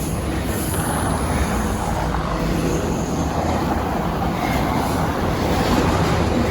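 Steady low rumble of a passing vehicle, with no clear rise or fall.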